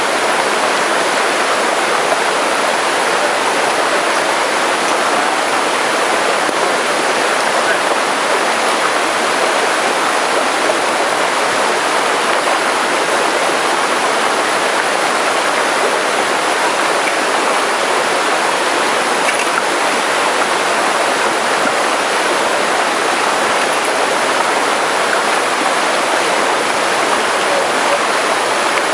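Steady rushing of running water, an even hiss with no let-up.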